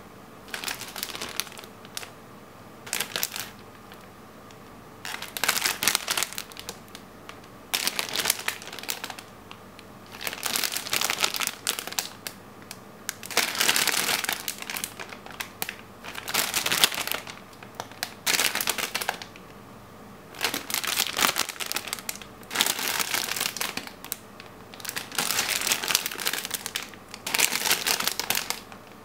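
Clear plastic bags of model-kit runners crinkling as they are handled, in repeated bursts a second or two long with short pauses between.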